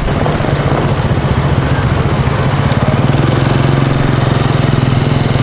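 Vehicle engine running steadily: a low hum with a fast, even pulse that grows a little stronger about three seconds in.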